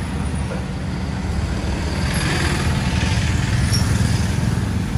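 Truck engine idling with a steady low hum, a little louder with some added hiss from about two seconds in.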